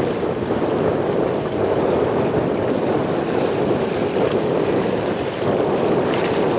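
Jet engine noise from a departing four-engine Airbus A380-800 at takeoff power: a steady, deep rumbling roar, with wind buffeting the microphone.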